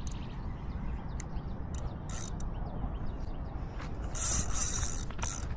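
Spinning reel ratcheting and clicking as a hooked fish is played on the rod, with a louder, high hissing rush about four seconds in.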